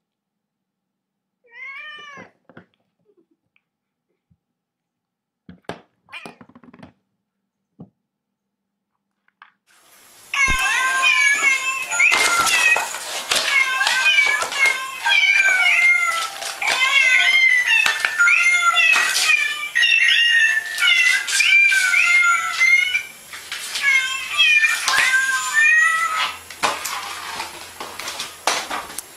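A cat meows once about two seconds in. After a quiet stretch with a few faint clicks, loud meowing starts at about ten seconds: many short calls in quick succession that carry on until near the end.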